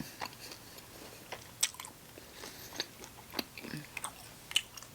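Close-miked chewing and biting of sauced chicken wings, with irregular wet, smacking mouth clicks.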